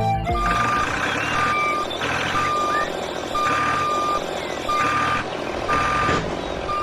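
Vehicle reversing alarm beeping steadily about once a second over continuous engine noise.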